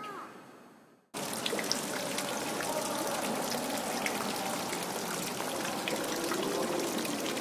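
Fountain water splashing steadily into a stone pool, with faint indistinct voices behind it. It cuts in suddenly about a second in, after the earlier room sound fades out.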